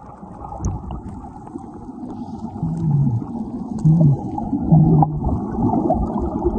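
Muffled water sound, dull and with no treble, as heard with the microphone under water in a waterfall pool. Three short low hums come through in the middle.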